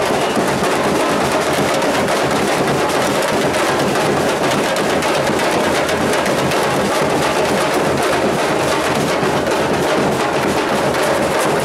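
Carnival street percussion band playing loudly and without pause: snare drums struck with sticks over big surdo bass drums, a dense driving rhythm of many close strikes.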